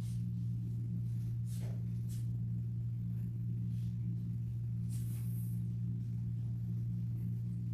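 Steady low electrical hum, with a few faint soft clicks and rustles over it and a brief hiss about five seconds in.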